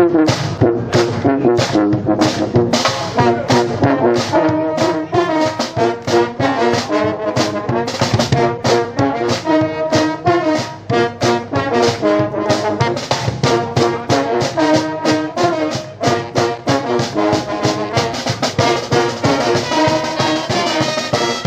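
A brass band playing live: trombones and trumpets over a steady, driving beat.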